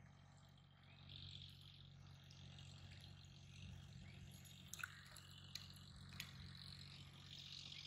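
Near silence: faint outdoor ambience with a steady low hum and a few soft clicks about halfway through.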